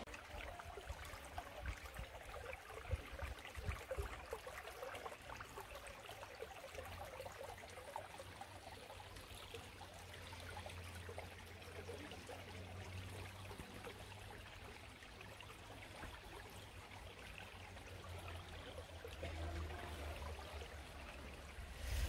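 Faint, steady sound of a creek flowing.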